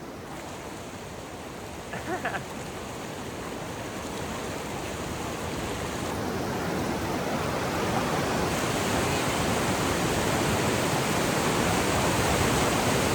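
Steady rush of an ice-cold meltwater river below a large waterfall, growing gradually louder. A short voice breaks in about two seconds in.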